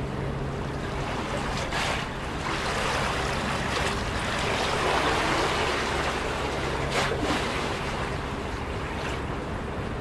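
Small harbour waves lapping and washing against a concrete seawall. The wash swells louder about halfway through, with sharper splashes about two seconds in and again about seven seconds in.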